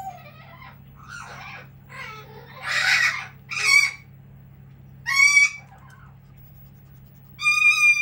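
Pet parrots screeching: a run of loud, shrill calls, several short ones and a longer held call near the end.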